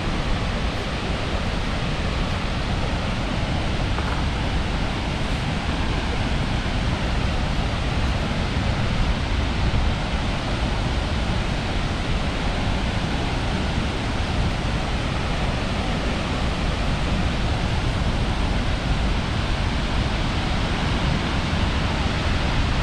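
Skógafoss waterfall, water plunging about 60 m into its pool, heard as a steady, even rushing noise with a deep rumble underneath.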